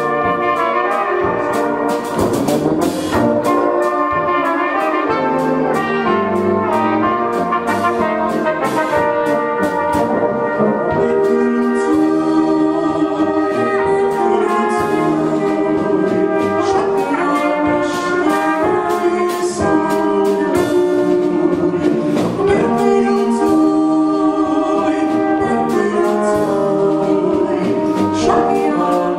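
Live Czech-style brass band (dechovka) of flugelhorns, tenor horns and tuba playing a Moravian folk-song tune together. A drum kit keeps a steady beat under the horns.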